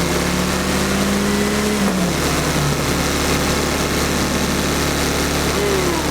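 Car-audio subwoofers playing a loud, steady low bass tone during a timed sound-pressure-level competition run, with a higher tone that rises slightly and drops out about two seconds in.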